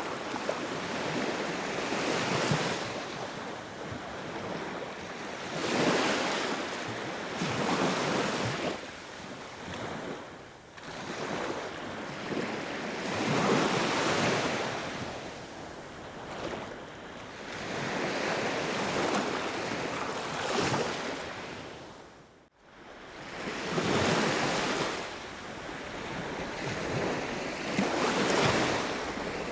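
Sea waves washing in and breaking, swelling and fading in surges every few seconds. The sound drops out for an instant about three-quarters of the way through.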